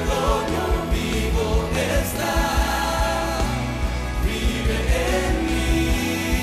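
Live Christian worship music: a male worship leader sings into a handheld microphone over a live band of keyboard, strings, guitars and drums, with a steady beat and sustained bass.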